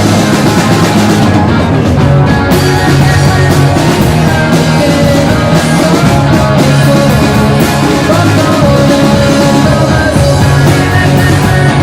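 A four-piece rock band playing live: two electric guitars, bass guitar and drum kit.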